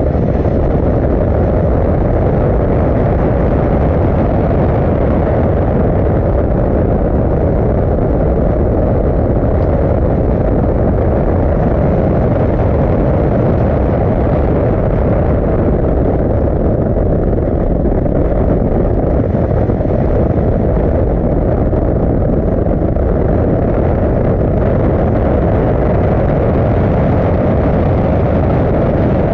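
Toyota GR Supra accelerating at speed on a wet track, heard from a camera mounted outside the car: a loud, steady rush of wind and tyre spray that covers the engine.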